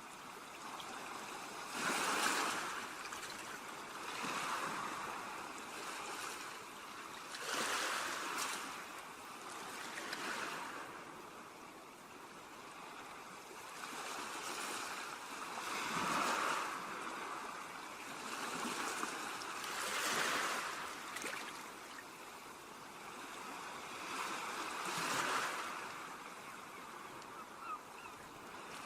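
Ocean surf on a beach: waves break and wash in as swells of noise every few seconds, over a steady background wash.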